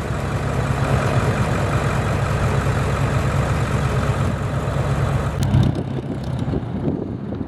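Boeing YL-15 Scout's piston engine idling on the ground with a steady, fast low throb. The throb cuts off about five and a half seconds in.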